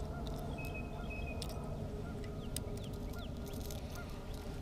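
Geese honking faintly, short calls repeating every half second to a second, over a steady low rumble of wind and water, with a few light clicks.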